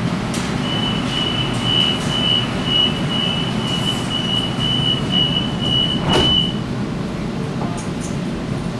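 Sydney Trains Waratah passenger doors closing: a rapid string of high warning beeps for about six seconds, then the doors shut with a thud about six seconds in, over the stationary train's steady low hum.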